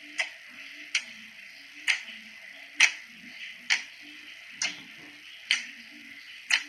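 Slime being pressed and poked, making a sharp click-pop about once a second at a slightly uneven pace.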